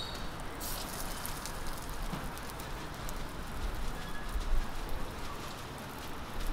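Millet pancakes (susu-bukkumi) sizzling and crackling in oil on a flat steel griddle, with some low rumbling in the second half.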